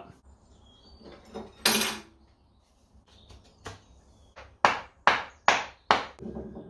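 Wooden mallet knocking the axe head onto its wooden handle: about five sharp blows, roughly half a second apart, in the second half. They come after a single knock about two seconds in.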